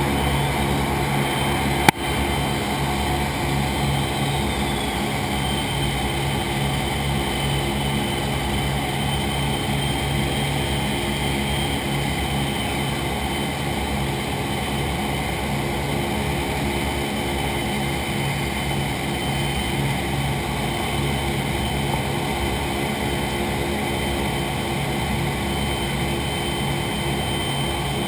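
Steady drone of a B-29 Superfortress's Wright R-3350 radial engines and propellers, heard from inside the fuselage as the bomber climbs out. A single sharp click about two seconds in.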